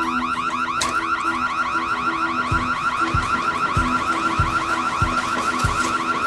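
Electronic burglar alarm going off: a fast warble of rising chirps, about six a second, repeating without a break over a pulsing lower tone. From about halfway, dull low thuds come roughly every 0.6 seconds.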